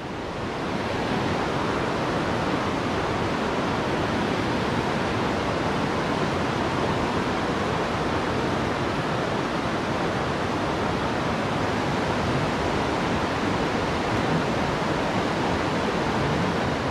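River water rushing over rocks through shallow riffles and rapids: a steady, even rush.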